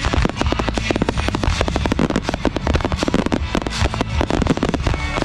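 Dense barrage of aerial fireworks shells bursting, many bangs each second, running into one another without a pause.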